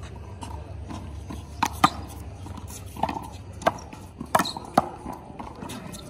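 Handball rally: a rubber handball slapped by hand and smacking off a concrete wall and court, about six sharp smacks, two close together near two seconds in and the rest spread over the next three seconds.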